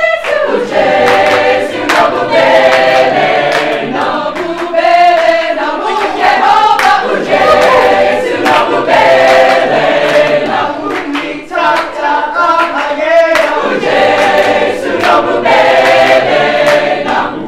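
A large mixed choir singing sustained chords in harmony, with low men's voices under higher voices and short breaks between phrases.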